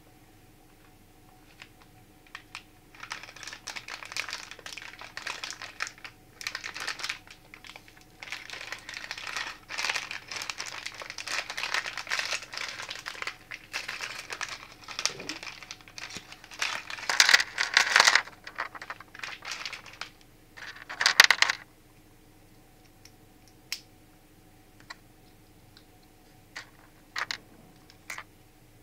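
Plastic blind-bag wrapper of a Playmobil Series 5 surprise figure crinkling as it is handled and torn open by hand, in a dense run of rustles with the loudest crackles near the end. Then the crinkling stops and a few small clicks follow as the plastic figure's parts are handled and fitted together.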